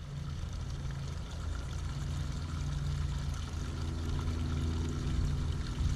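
Steady low mechanical hum, with a second, higher droning tone joining about halfway through.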